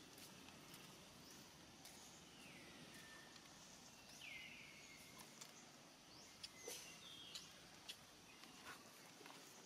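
Near silence: faint outdoor background hiss. Two short falling whistle-like calls come a few seconds in, and a few light clicks follow in the second half.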